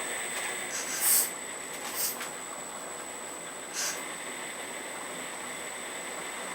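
Earth Digger 4200XL RC hydraulic excavator's pump running with a steady high whine and hiss. Three short bursts of sharper hiss come about one, two and nearly four seconds in.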